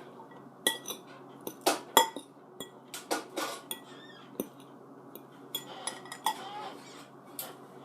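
Metal cutlery clinking against a plate or bowl during a meal: a dozen or so sharp, irregular clinks with a short ring.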